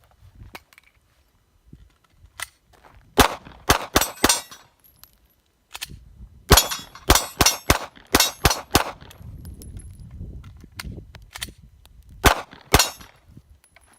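A string of sharp metallic clicks and clacks in three quick groups, about a dozen in all. It is typical of a gun's action being worked and failing to fire, a series of misfires.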